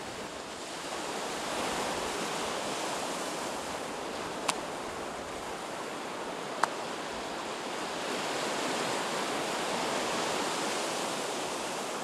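Sea surf breaking on a sandy beach, a steady rush of waves that swells and eases, with two short sharp clicks about four and a half and six and a half seconds in.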